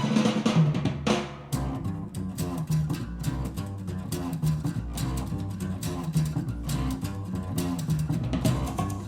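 Music played back through a pair of Kanto YU4 powered speakers: a jazz band's bass riff over a drum kit with snare and bass drum, the groove kicking in about one and a half seconds in.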